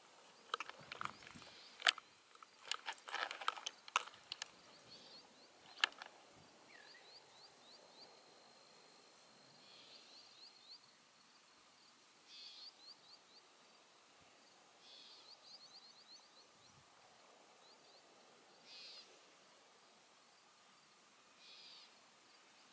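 Faint evening bayside marsh ambience: a flurry of sharp clicks and knocks in the first six seconds, then short high chirping trills every few seconds over a faint steady hiss.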